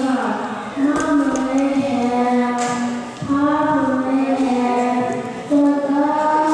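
A young girl singing solo into a handheld microphone, holding long, drawn-out notes with short breaths between phrases.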